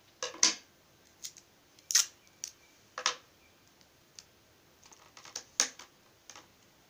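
Sticky tape and paper being handled, with tape pulled and pressed on while a stick is fixed to the back of a paper mask. It gives a dozen or so short, sharp crackles and clicks at irregular intervals.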